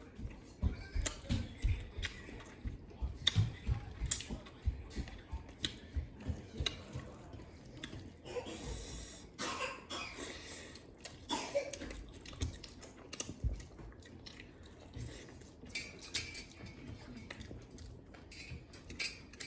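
Close-up eating sounds: wet chewing with frequent sharp mouth clicks and smacks as goat meat and rice are eaten, and a brief breathy rush about nine seconds in.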